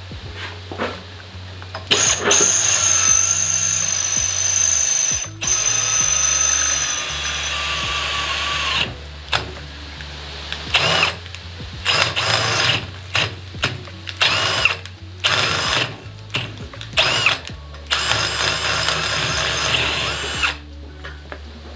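Cordless drill boring through a fender mounting bracket. It starts with one long run of several seconds whose whine shifts in pitch, then comes a string of short trigger bursts, and near the end another longer run.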